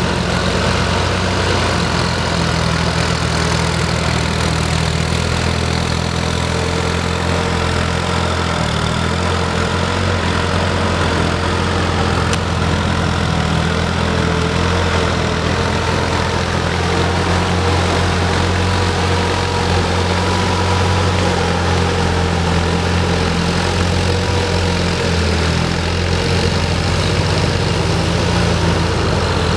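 Tractor diesel engine running steadily as it pulls a rotary tiller through wet paddy mud: a continuous low drone with a slightly wavering whine above it.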